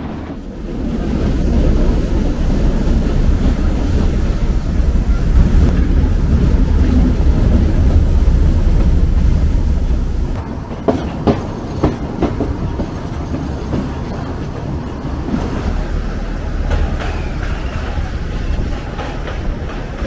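Narrow-gauge passenger train running, heard from an open carriage window: a loud, steady rumble of wheels and coaches. About halfway through it eases to a lighter run, and a quick series of sharp clicks follows as the wheels cross rail joints.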